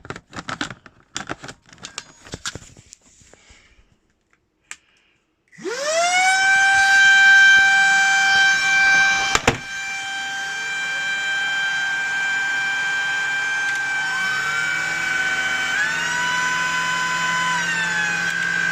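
Clicks as a battery is fitted to a Shark IZ201UK Duo Clean cordless vacuum, then its motor spins up to a loud, steady high whine, with a sharp click partway through. About two-thirds of the way in, a second, lower motor tone joins and the whine's pitch shifts.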